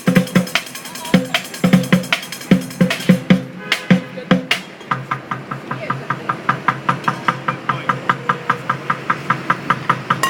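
Drumming: heavy, irregular drum hits for about five seconds, then a fast, steady run of sharp strikes, about five a second.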